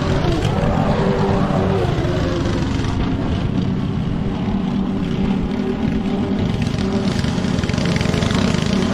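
Petrol lawn mower engine running steadily under load.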